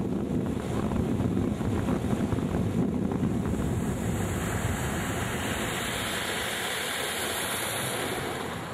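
A motorboat under way at speed: a steady rush of engine, water and wind noise, easing off slightly near the end.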